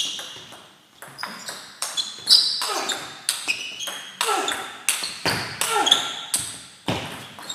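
Table tennis rally: the ball clicks off bat and table in quick alternation, about three hits a second, echoing in a sports hall.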